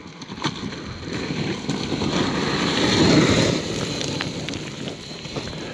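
Talaria MX4 electric dirt bike climbing a gravel hill: a rushing sound that swells about three seconds in and then fades, with a faint steady high whine through it.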